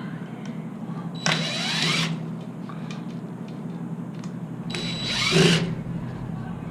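Impact driver run in two short bursts, about a second in and again near five seconds, its motor rising in pitch as it spins up each time.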